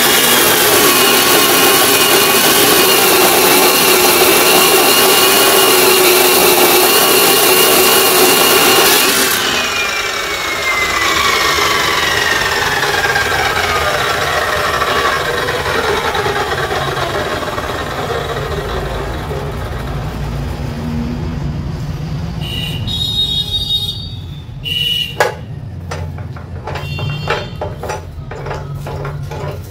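Electric motor and cutting wheel of a repaired KPT KC 355+ 14-inch cut-off machine running free at full speed with a steady high whine, then switched off about nine seconds in and winding down, its pitch falling slowly over several seconds. Near the end, scattered metallic clicks and a sharp knock as the machine's vise is handled.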